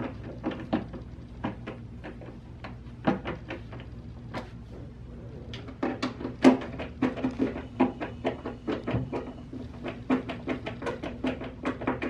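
Hand screwdriver turning the back adjustment screw of a metal concealed cabinet hinge: a run of small metallic clicks and knocks, sparser at first and coming faster from about halfway.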